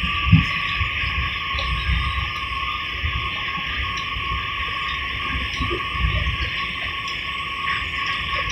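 Steady high-pitched whine heard inside a moving R32 subway car, which the uploader puts down to its brakes, over the low rumble of the car running on the track.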